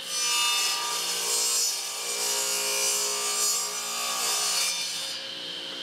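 Table saw cutting a small hardwood blank: the blade's steady running tone carries a loud rasp of the cut that swells a few times over about five seconds. Near the end the cut finishes and the blade spins free.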